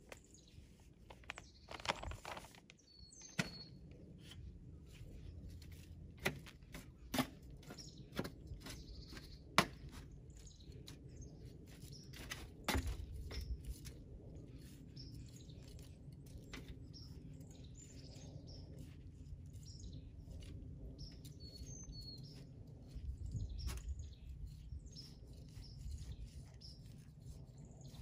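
Small birds chirping on and off, with scattered sharp clicks and knocks and a low rustle of soil being worked by hand in a raised bed.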